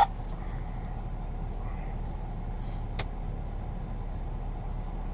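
Vehicle engine idling in a steady low hum, heard from inside the cab, with a sharp click at the start and another about three seconds in.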